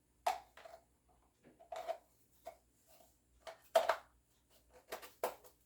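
Irregular metallic clicks and knocks of a Lee-Enfield rifle's box magazine being worked into its magazine well, about eight short taps spread over a few seconds, the loudest near the start and a little before four seconds in.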